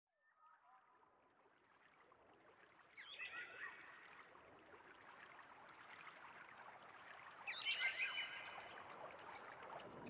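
Nature-sound intro fading in from silence: a soft, steady rush of running water with birds chirping in short bursts, faintly at the start, again about three seconds in, and loudest near the end.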